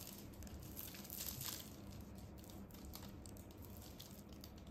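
Faint crinkling and rustling of plastic Suzuran packing tape as it is drawn through the stitches with a crochet hook while a double crochet stitch is worked, in scattered soft crackles.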